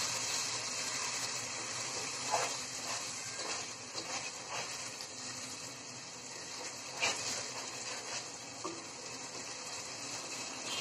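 Spice paste sizzling in a pot while it is fried down and stirred with a wooden spatula, with a few knocks of the spatula against the pot.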